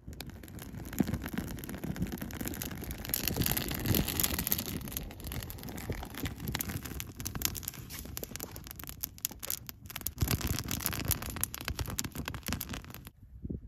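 Small wood fire burning up from a tinder bundle, crackling and hissing up close with rustling of dry tinder and sticks. It cuts off suddenly near the end.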